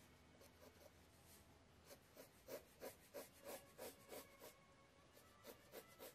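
Faint scratching of a mechanical pencil's graphite lead on sketch paper: a run of short strokes, about three a second, bunched in the middle, with a few more near the end.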